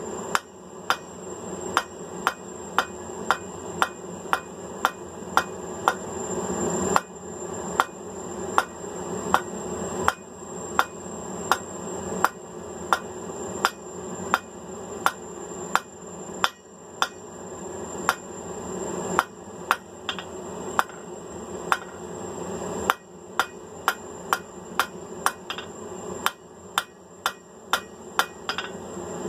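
Blacksmith's hand hammer striking hot mild steel on an anvil while forging, with ringing blows at about two a second in runs broken by short pauses. A steady hum runs underneath.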